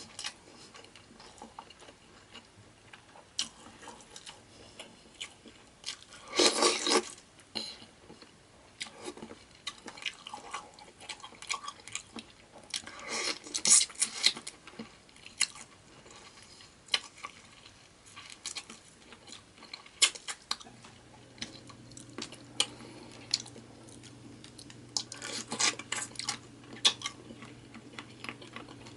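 Close-miked eating of a seafood boil: chewing, cracking of shells and clinks of utensils and dishes, in scattered clicks with a few louder bursts. A steady low hum comes in about two-thirds of the way through.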